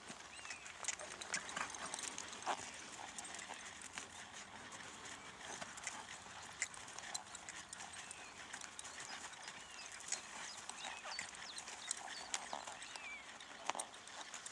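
A ridden horse walking on a sand arena surface: soft hoofbeats with scattered light clicks.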